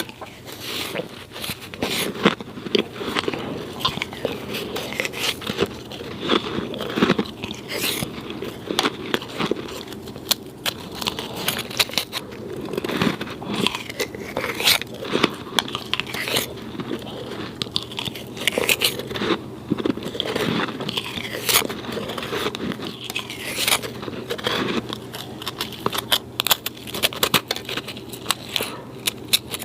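A person biting and chewing snow: a continuous run of irregular crisp crunches and crackles, with some scraping.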